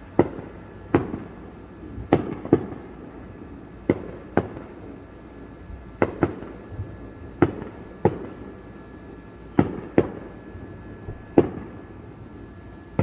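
Aerial fireworks bursting: about a dozen sharp bangs at irregular intervals, sometimes two within half a second, each trailing off briefly.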